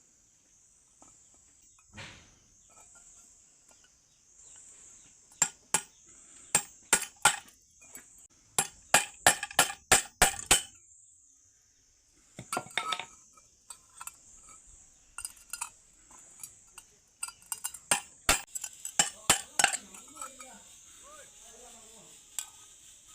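Sharp clinks and taps of hard objects in two quick runs with a short pause between them, over a steady high-pitched hiss. These are the sounds of handling and knocking on a cup being repaired.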